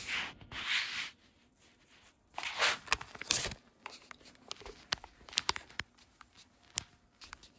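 Handling noise from a phone being carried with its lens and microphone covered: two bursts of rustling and rubbing in the first few seconds, then scattered light clicks and taps.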